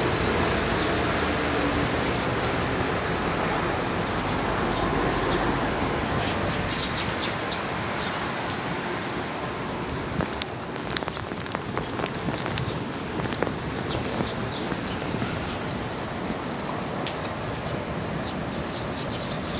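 Steady rain falling on wet pavement, with many sharp, close drip ticks through the second half. A low rumble fades out over the first few seconds.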